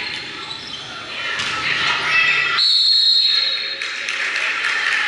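Referee's whistle blown once, a single shrill blast of about a second roughly halfway through, over crowd chatter in the gym.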